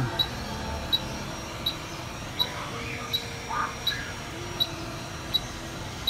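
Short, high ticks repeating evenly a little faster than once a second, over faint steady background tones.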